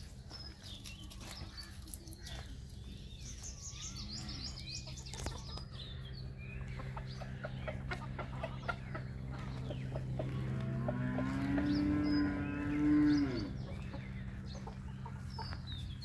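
Farmyard with chickens, small birds chirping high up a few seconds in, and one long animal call about ten seconds in. The call lasts about three seconds: it rises, holds a steady pitch and drops at the end.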